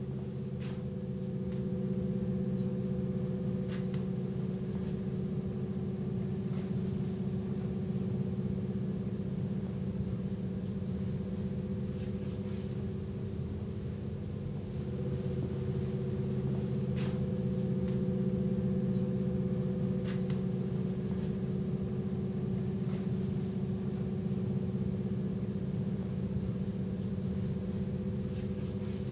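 Low sustained droning chord of a few held tones, shifting slightly about halfway through, with a few faint clicks over it.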